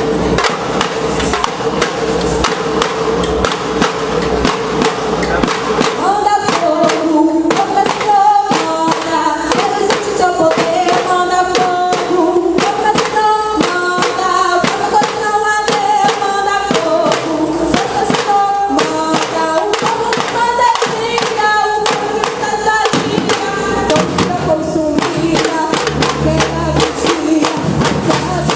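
Percussion band playing a fast, steady drum rhythm, with a stepping melody joining about six seconds in.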